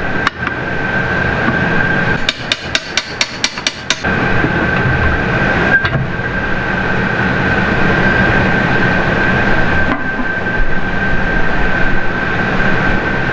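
Metal clicking and clanking as a cast metal porthole's dogs are worked loose and its hinged deadlight cover swung open, with a quick run of about nine sharp clicks around two to four seconds in. Under it, a steady high whine and a noisy hum run throughout, louder after about four seconds.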